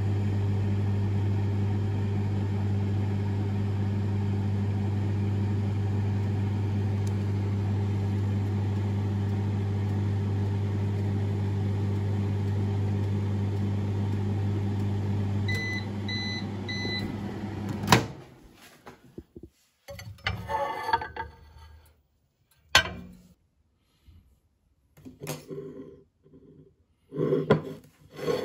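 Microwave oven running with a steady hum, then stopping and giving three short beeps at the end of its cycle. About a second later comes a sharp click as the door is opened, followed by scattered light knocks and rattles of handling.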